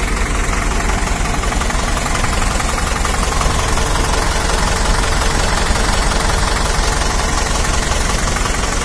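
Standard 460 tractor's diesel engine idling steadily, heard up close beside the engine with an even clatter.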